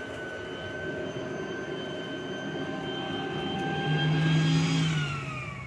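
Electric leaf vacuum running, blowing loose cellulose insulation through a hose into a wall cavity: a steady motor whine with a faint rush of air. About four seconds in a deeper hum joins, the change in sound that comes as the wall fills, and a second later the motor is switched off and spins down with a falling whine.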